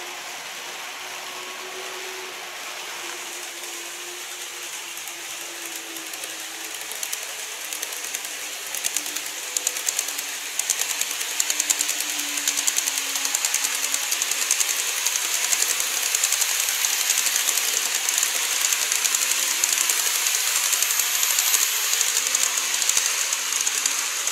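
Model train of the E257 series running along a plastic viaduct track: a fast, dense clicking rattle of its wheels on the rails. It builds from about seven seconds in, stays loud through the middle and eases slightly near the end.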